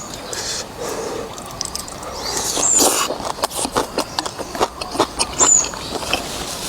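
Close-up eating sounds: noodles and soup being slurped and chewed, with wet smacking clicks. Two short high chirps come through, about a third of the way in and again near the end.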